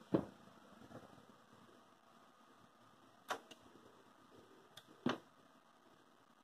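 A few sharp clicks and knocks from hands handling a desktop PC case and the buttons on its top panel, the loudest about three and five seconds in, over a faint steady hum.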